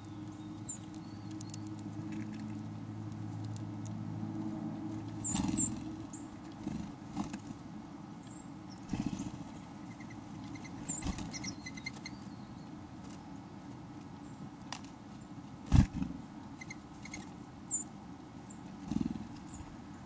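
Outdoor winter ambience at a ground feeding spot: a few short, very high bird chip notes scattered through, over a low steady hum that fades out about five seconds in. A single sharp thump about 16 seconds in is the loudest sound.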